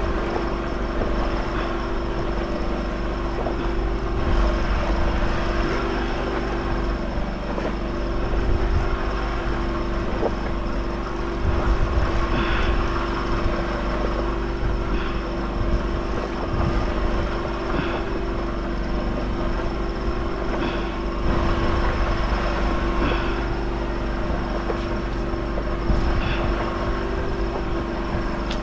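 Steady hum of an engine, most likely the diesel generator that powers the fishing platform's lamps, running at a constant pitch. A few short faint sounds rise above it every couple of seconds in the middle.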